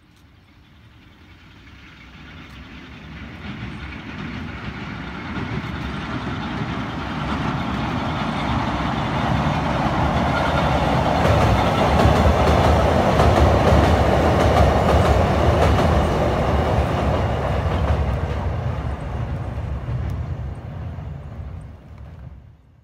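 Electric train crossing a steel girder railway bridge: the rumble and wheel clatter swell as it approaches, are loudest about halfway through, then fade away near the end.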